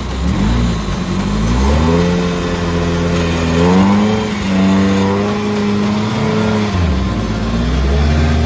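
Off-road 4x4's engine revving hard under load. The pitch climbs about two seconds in and holds high, drops back about seven seconds in, then rises again near the end.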